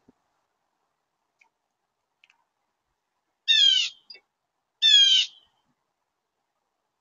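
Blue jay giving two 'jay' calls, each about half a second long, a little over a second apart, about three and a half seconds in.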